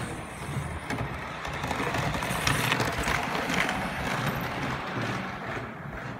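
HO-scale model train running past on the layout, its wheels clicking and rattling over the rail joints with a low motor hum; it grows louder to a peak in the middle and fades toward the end.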